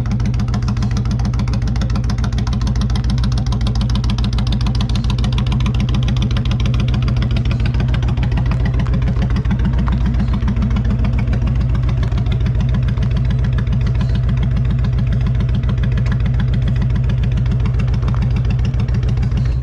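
Car engine idling steadily, a loud, even, rapid pulse with a deep low end.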